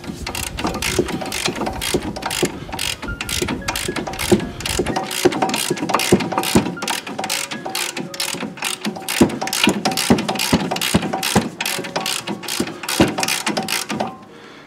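Ratchet wrench clicking as it works a bolt on a front brake caliper, a quick, even run of pawl clicks, about four a second, that stops about a second before the end.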